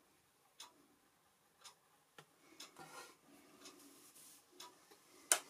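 Watercolour brush rubbing softly across paper through the middle, between light sharp ticks that come about once a second at first. The loudest tick falls near the end.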